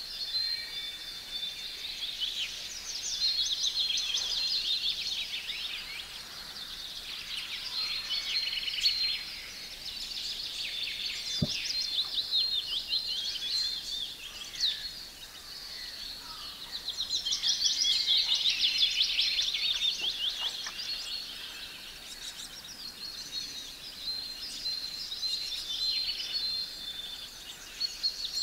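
Several songbirds singing at once, a dense chorus of quick chirps and trills that swells louder twice.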